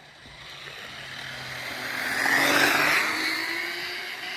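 A 3D-printed direct-drive RC drag car making a fast pass. Its high-pitched motor whine and tyre noise build to the loudest point about two and a half seconds in, then fade as it goes by.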